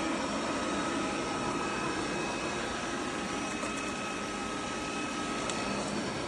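Steady motor whir and air rush of the eufy Omni C20 robot vacuum running, starting abruptly, with a thin steady whine that drops out near the end.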